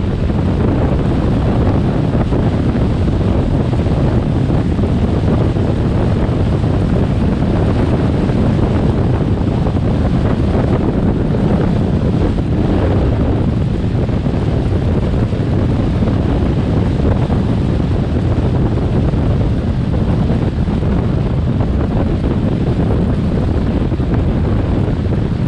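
Steady, loud wind rushing over the microphone of a GoPro on a moving car, with low road and vehicle noise underneath.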